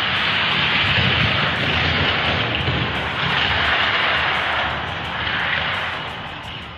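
Hot Wheels diecast cars rolling at speed along a plastic race track: a steady rushing rolling noise of small wheels on the track, easing off near the end.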